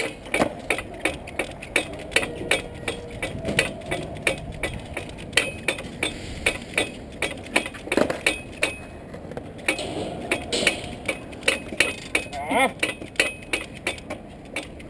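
A trials bike hopping in place on its rear wheel on a wooden rail: a rapid, irregular run of sharp knocks and rattles, about three a second, as the wheel lands again and again and the bike's parts clatter.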